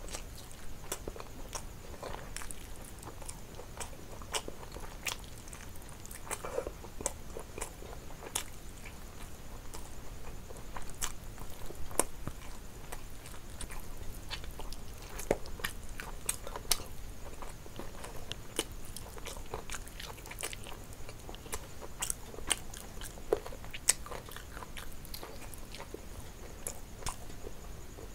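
Close-up chewing and biting of fried chicken leg meat torn from the bone, with many irregular sharp mouth clicks and smacks.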